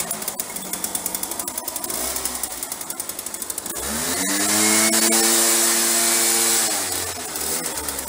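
Echo PB-500T backpack blower's two-stroke engine running at idle with a fast pulse, then revved up about four seconds in, held at high speed for a couple of seconds with a steady whine, and let back down to idle near the end. It is running again after a won't-start repair with new fuel lines and an aftermarket Hipa carburetor.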